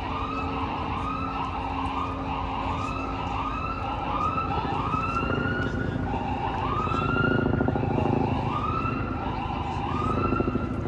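Emergency vehicle siren sounding in repeated rising sweeps, quick at first and slowing to about one a second partway through. Beneath it is a low traffic rumble that grows louder in the second half.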